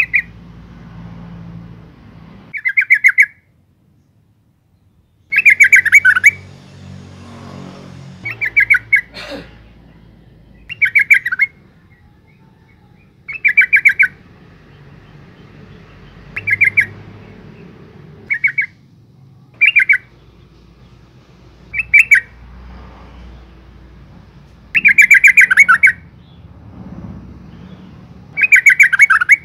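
A female yellow-vented bulbul calling: about a dozen short bursts of rapid stuttering notes, each under a second long and repeated every two to three seconds. The longest and loudest bursts come near the end.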